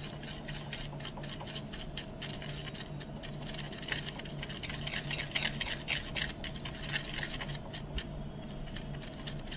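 Two-part epoxy, hardener and resin, being stirred and spread by hand on a flat sheet: repeated short scraping and rubbing strokes, busiest in the middle.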